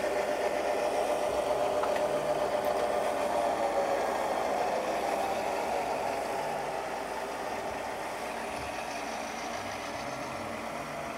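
Sound decoders in five HO-scale Burlington Northern GP9 model locomotives playing running diesel engine sounds, each engine pitched a little differently from the others. The sound slowly gets quieter over the second half as the engines move on.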